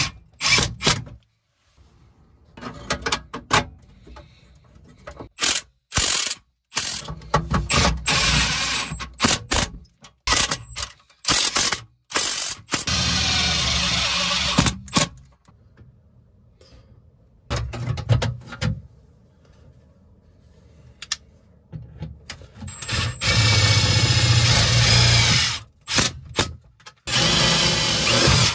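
Cordless drill run in repeated bursts, driving screws through aluminum diamond-plate sheeting; the longest bursts last two to three seconds and carry a thin high whine. Short knocks and clicks come between the bursts.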